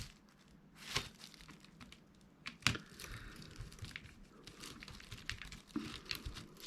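Faint clicks and taps of an old plastic mobile phone being handled and taken apart by hand, with two sharper clicks about one second and two and a half seconds in.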